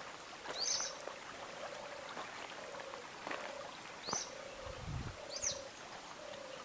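Three short, high bird chirps spaced a few seconds apart, over a short low note repeating about twice a second, with faint rustling and a brief low rumble near the middle.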